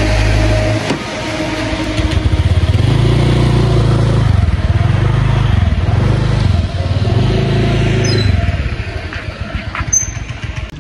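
Motor scooter engine pulling away and riding off, its pitch rising and falling several times before fading out near the end.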